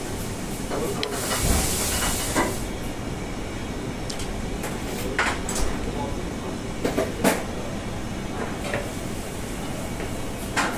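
Commercial kitchen noise: a steady rumble of ventilation and equipment, a short hiss about a second and a half in, and scattered clinks of utensils on steel bowls and containers.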